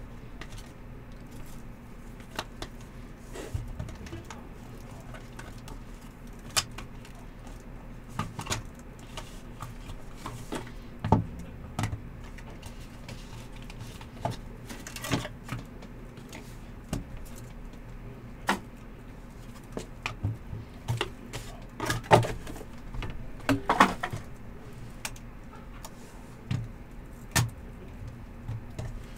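Hard plastic card cases and cardboard being handled: scattered clicks, taps and knocks as encased trading cards are taken from a box and stacked on a table, over a low steady hum.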